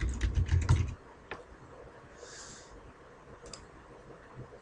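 Typing on a computer keyboard, a quick run of keystrokes in the first second, followed by two single clicks.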